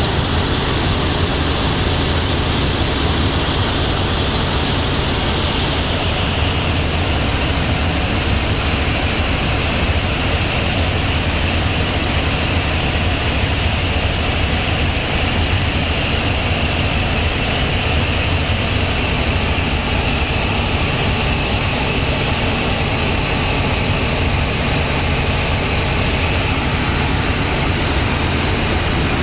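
Cabin noise of a Robinson R44 helicopter in flight: the steady drone of its piston engine and rotors with a rush of air, heard from inside the cabin. A high whine in the noise slowly sinks in pitch.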